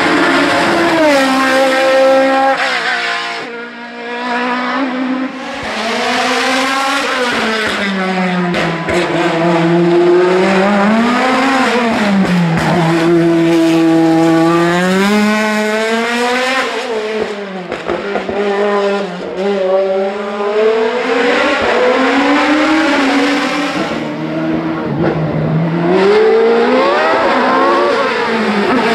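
Racing car engine at full throttle through a hill climb, its pitch climbing through the revs and dropping again and again with gear changes and braking.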